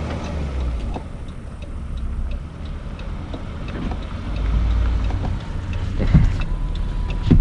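Low, steady rumble of a car, heard from inside the cabin, with a few faint ticks and a short knock near the end.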